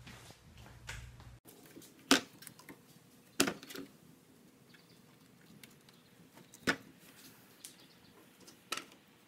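Hands working among the hoses and fittings of a car's engine bay: a few sharp, separate clicks and knocks, the loudest about two seconds in and others spaced a second or more apart. A low steady hum runs until a cut about a second and a half in.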